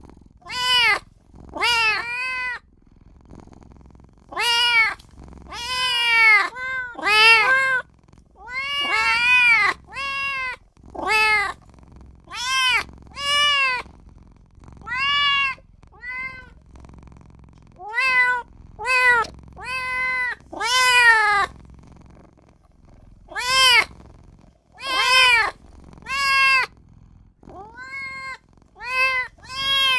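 A kitten meowing over and over, in high calls that rise and then fall in pitch, often two or three in quick succession with short pauses between runs.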